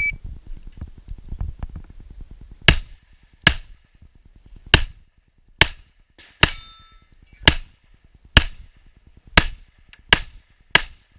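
Ten pistol shots, evenly spaced about a second apart, from a .38 Super STI Trojan single-stack 1911 firing an IPSC stage. The shooting starts about two and a half seconds in. One shot midway is followed by a brief ringing tone.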